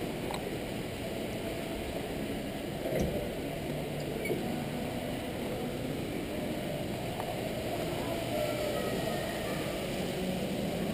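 Steady indoor ambience of a large, busy store: a constant hum of background noise with faint indistinct voices, and a few light clicks or knocks.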